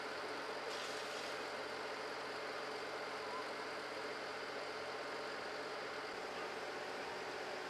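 Fire engines running steadily, their pumps feeding the hoses, under the steady hiss of a hose jet spraying water.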